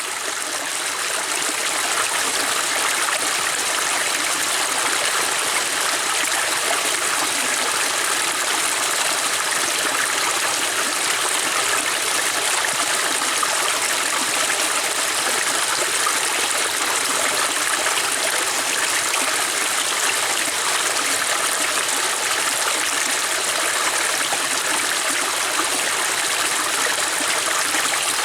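River water flowing over rocks: a steady, even rush of splashing and burbling, fading in over the first couple of seconds.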